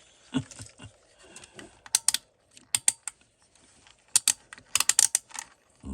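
Sharp plastic clicks of a Craftsman multimeter's rotary selector switch being turned through its detent positions, in quick clusters of several clicks.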